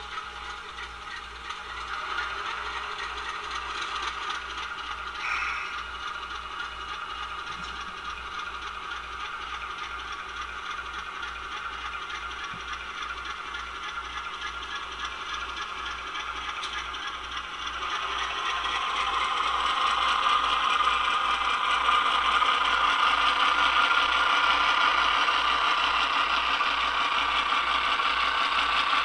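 An HO-scale model diesel's QSI Titan sound decoder plays an ALCO 244 diesel engine running, through the locomotive's small onboard speaker, together with the rattle of the model train rolling along the track. The sound grows louder about two-thirds of the way through.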